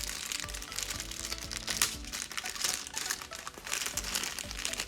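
Small plastic ingredient pouches crinkling as they are handled, with background music.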